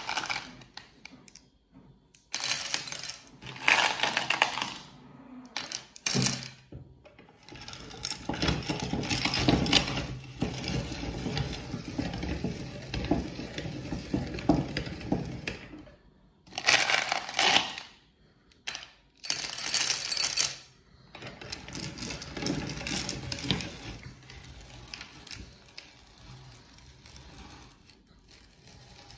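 Hand-cranked metal meat grinder crushing M&M's candies: hard candy shells crack and crunch as the crank turns the auger, with candies clattering against the metal in loud bursts. A long stretch of steady grinding comes from about 8 to 16 seconds in, and the grinding tails off near the end.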